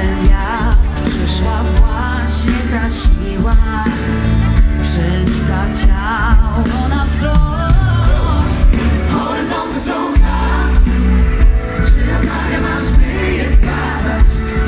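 Live band music over a stage PA: several singers with wavering sung lines over heavy bass and drums. The bass drops out briefly about ten seconds in.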